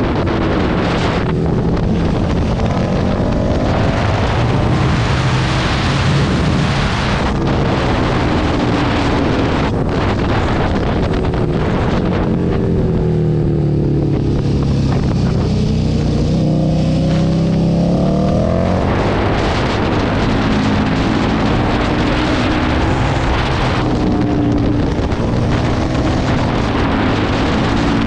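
KTM 1290 Super Duke's V-twin engine with an Akrapovič titanium full exhaust, heard from the rider's position over wind rush on the microphone. The engine note rises and falls with the throttle; about twelve seconds in it drops in pitch as the bike slows for a hairpin, then climbs again as it accelerates out.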